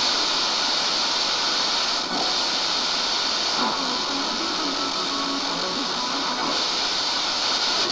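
FM static hissing from a Ramsons Prince portable radio's speaker as the tuning knob is turned between stations, with faint snatches of a station breaking through in the middle. The reception is weak: the set is picking up on a short wire in place of its broken antenna.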